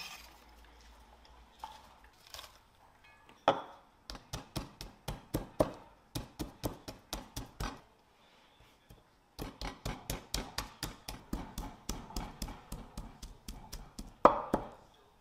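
Kitchen utensils knocking in a steady rhythm, about four strikes a second, in two runs of a few seconds with a short pause between. A louder single clatter comes just before the first run and another near the end.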